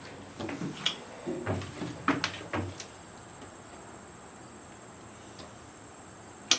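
A run of irregular knocks and clunks for about two seconds, then a sharp click near the end.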